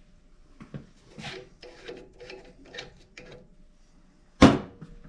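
Copper pipe and fittings being handled and fitted together: a run of scrapes and light knocks, then one loud clunk with a short ring about four seconds in.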